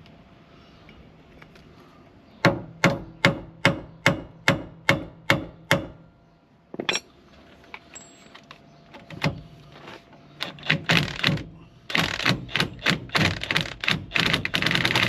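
Hammer striking metal: about ten evenly spaced blows, a little under three a second, then after a pause scattered blows building to a fast, dense run of strikes near the end.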